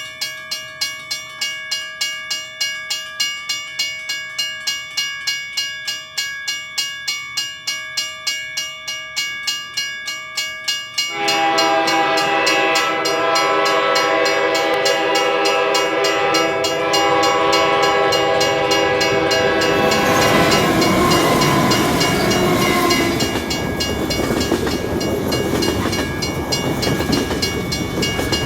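A level crossing's warning bell ringing at about three strikes a second. About 11 seconds in, a freight locomotive's multi-tone horn sounds and is held for about nine seconds, over the bell. The horn gives way to the steady rumble and clatter of the long freight train passing.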